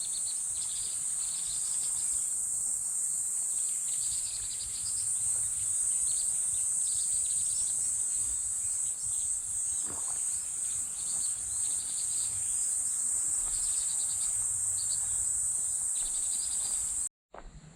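Chorus of insects: a steady high-pitched shrill with shorter pulsing chirps below it, cutting off abruptly near the end.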